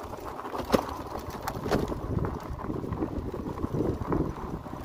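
VoltBike Nitro fat-tyre electric bike rolling over a loose gravel and dirt track: a rough, uneven rumble of the 4-inch tyres on stones, with scattered clicks and a sharp knock about three-quarters of a second in.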